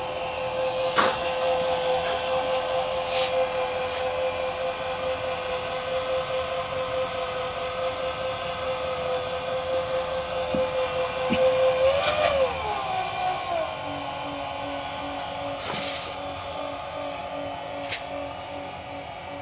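Bridgeport-type power feed motor (a Harbor Freight copy) driving the knee of a Gorton vertical milling machine up or down, running with a steady whine. About twelve seconds in its pitch drops, and it carries on with a lower, pulsing hum. A few sharp clicks come over it.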